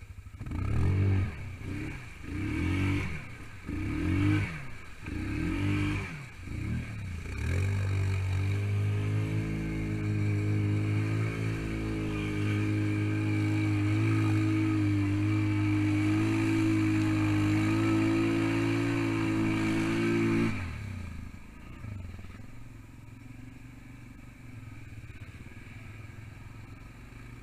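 ATV engine revving up and down about six times as it ploughs through a muddy water hole, then held at steady high revs for about thirteen seconds. It cuts off suddenly about two-thirds of the way through, leaving only a quiet low rumble.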